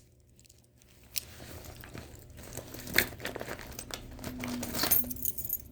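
Small items being handled: crinkling and rustling with scattered clicks, starting about a second in.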